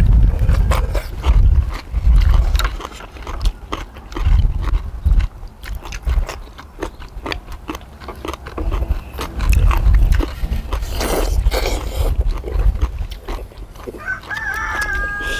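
Close-up eating sounds: slurping of beef short-rib soup broth and noodles, with chewing and lip smacking. A rooster crows briefly near the end.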